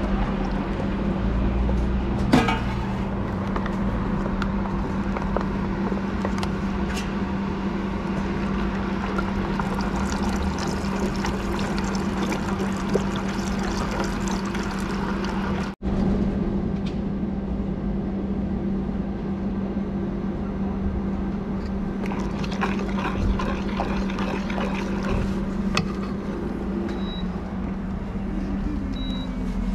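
A pot of sauce being stirred with a metal ladle in a steel stockpot, with small clicks and a sharp knock of the ladle about two seconds in, and coconut milk poured into the liquid in a thin stream, over a steady low hum.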